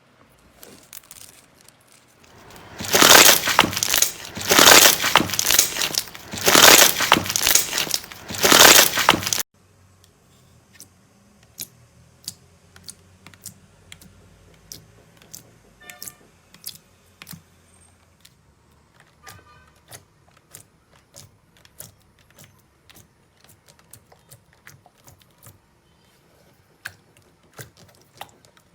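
Slime being worked by hand close to the microphone. It gives about seven seconds of loud crackling that swells four times, then after a sudden cut a long run of small, sharp pops and clicks.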